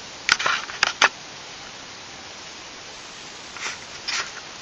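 Short scrapes and knocks, a cluster of three or four in the first second and two more near the end, over a steady hiss: a hunter climbing down a metal ladder tree stand.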